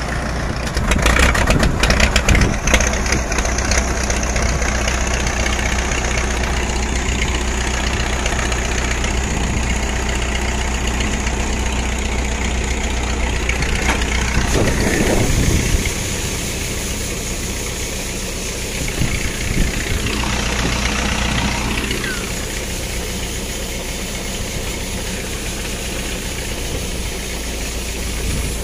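Farmall 450 diesel tractor engine running, with the Allis-Chalmers All-Crop 66 pull-type combine it drives working behind it.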